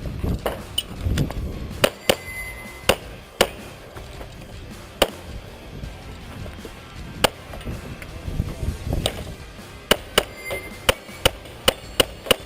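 A string of pistol shots at a match stage: single shots at uneven spacing, then a quicker run of about half a dozen near the end. A short metallic ring follows some of the hits, typical of steel targets being struck.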